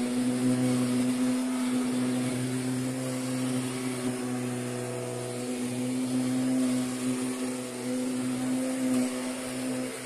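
Kirby Sentria upright vacuum cleaner running, its motor holding a steady hum at one pitch while vacuuming a rug.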